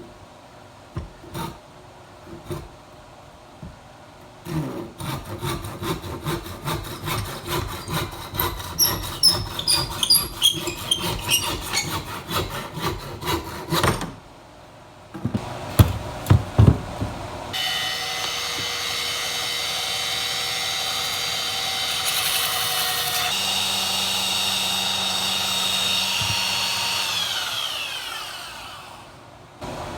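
Hand saw cutting wood in even back-and-forth strokes, about two a second, then a few sharp knocks. After that an electric power tool runs steadily for about ten seconds and winds down near the end.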